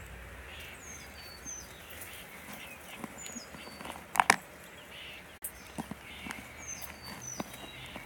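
Wild songbird singing short phrases of high, falling whistled notes, each phrase repeated about every three seconds. Two loud, sharp clicks in quick succession a little past halfway.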